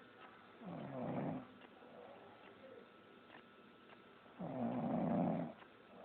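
Snoring: two loud snores about four seconds apart, the second one a little longer.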